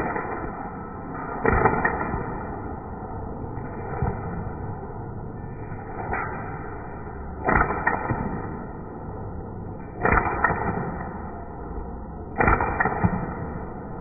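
Airsoft handgun shots: single sharp cracks every couple of seconds, some followed closely by a second crack, over a steady background hiss.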